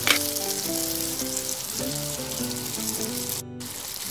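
Frying sizzle over background music with a simple stepping melody. The sizzle cuts out briefly about three and a half seconds in.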